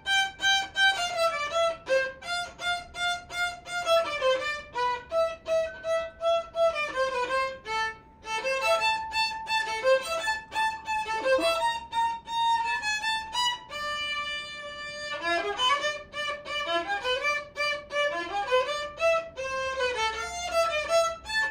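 Child-size violin played solo, a bowed melody of short notes with a long held note around the middle and quick rising and falling runs near the end.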